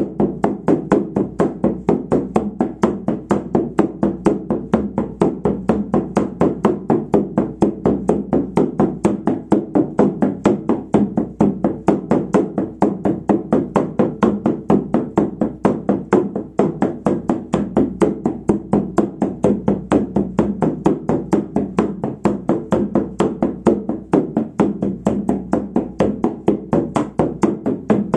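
Hand-held frame drum struck with a beater in a fast, even, unbroken beat: the steady drumming used to carry listeners into a shamanic journey.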